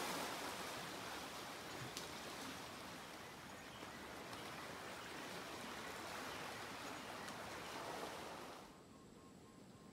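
Small waves washing and trickling over the stones of a rocky shoreline, a steady rushing that drops away suddenly near the end to a much quieter hush.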